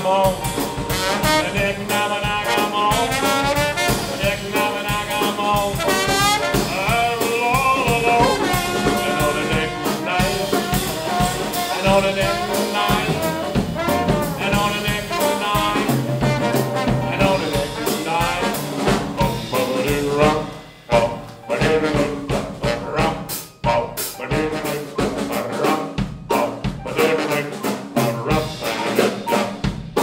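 A live New Orleans rhythm-and-blues band of piano, trombone and drum kit playing an instrumental chorus, the trombone carrying the melody over piano and drums. In the second half the band breaks off briefly a couple of times between hits.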